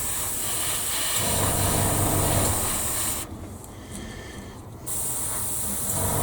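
Airbrush spraying paint at about 12 psi with a steady hiss of air, cut off for about a second and a half in the middle as the trigger is released, then resumed. A low hum of the air compressor runs underneath.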